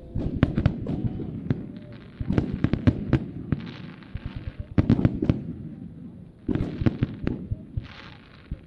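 Fireworks display going off in quick volleys of sharp bangs, about four clusters, with stretches of hiss between them.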